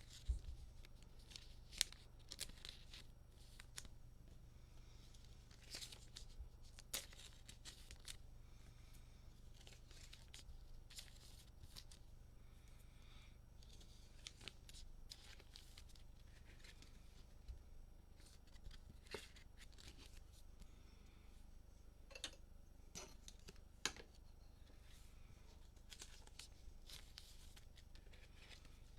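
Faint tearing and crinkling of trading-card pack wrappers as they are opened, with scattered light clicks and rustles of cards being handled.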